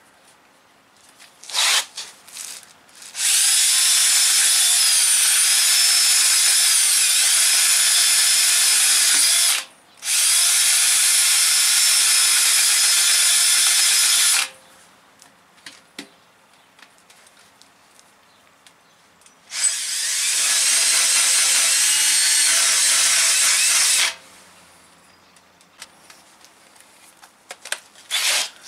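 Cordless drill spinning a coarse, about 40-grit tire-buffing tool against the inside rubber of a truck tire, grinding it smooth to prepare a spot for a patch. After a short blip about two seconds in, the drill runs in three long steady bursts with two pauses, a brief one near ten seconds and a longer one after about fourteen seconds.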